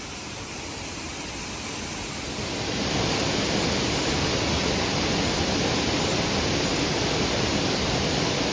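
Rushing water of a waterfall, a steady hiss that grows louder about two and a half seconds in and then holds.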